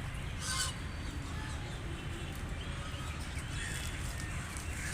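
Wild ducks calling with short, faint quacks over a steady low rumble. A brief hissy burst comes about half a second in.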